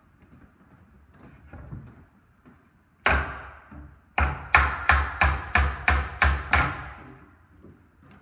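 Hammer driving a nail through timber bracing into a wooden roof truss: one blow about three seconds in, then a run of about eight quick blows, roughly three a second.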